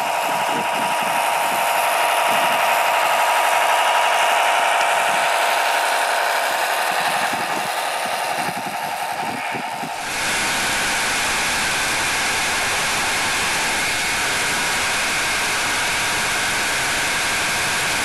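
Scale RC Tatra 130 truck's motor and gearbox whining as it drives through soft sand, the pitch wavering with the load. About ten seconds in the sound changes abruptly to a steadier, hissier drone, picked up by a camera mounted on the truck.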